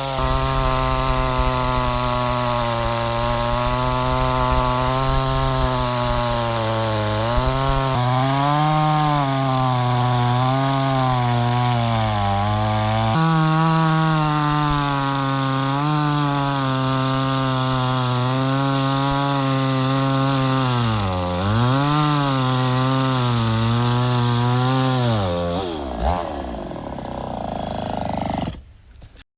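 Two-stroke 5200-class chainsaw ripping wood lengthwise, its engine pitch wavering up and down as the chain bites under load. Near the end the engine winds down and stops.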